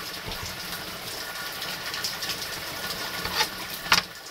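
Heavy rain falling as a steady hiss. Near the end come two sharp clicks from a knife against a plate as frozen pork is cut.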